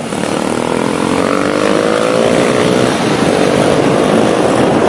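Small motorbike and scooter engines accelerating, their pitch climbing steadily for about three seconds and then holding, over steady road and wind rush.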